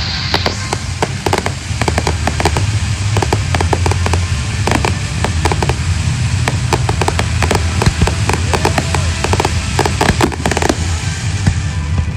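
Fireworks going off in a dense, continuous barrage of bangs and crackles over a steady low rumble.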